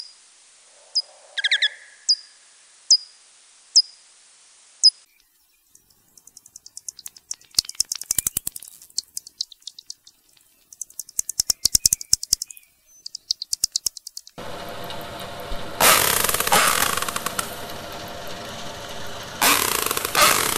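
Recorded echolocation of pipistrelle bats: a series of short downward-sweeping chirps about one a second, then trains of rapid clicks. From about 14 s in comes an underwater recording of an orca (killer whale), a steady hiss with two loud bursts of rapid echolocation clicks.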